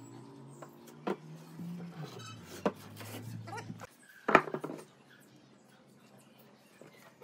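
Wooden branch pieces handled on a workbench, giving a few light clicks and one sharp wooden knock about four seconds in. Faint low background music plays under the first half.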